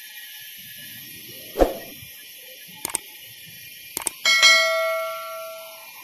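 Subscribe-button sound effect: a thump, two pairs of quick mouse clicks, then a bell-notification ding with several tones that fades over about a second and a half. Under it, a steady hiss of sawmill machinery.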